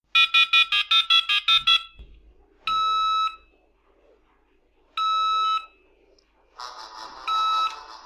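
Dial-up modem tone-dialling a number: a quick run of about nine touch-tone beeps. Then short steady beeps come about every two and a half seconds, and near the end the called mobile phone starts playing its ringtone.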